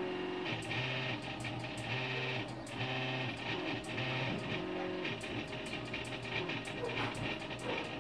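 NEMA 17 stepper motors of a homemade laser engraver whining as the head traces hatch lines back and forth. The whine is a set of steady tones that jump to a new pitch every half second or so with each change of direction, over light clicking.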